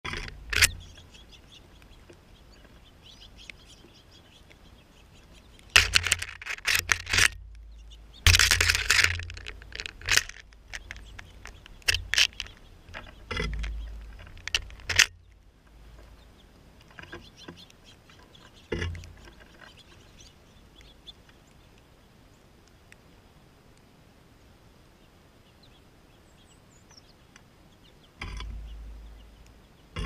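American goldfinches at a mesh sock feeder, with scattered faint chirps and calls. About six seconds in comes a busy stretch of loud, irregular rustling and sharp clicks that lasts several seconds, with a low rumble underneath at times.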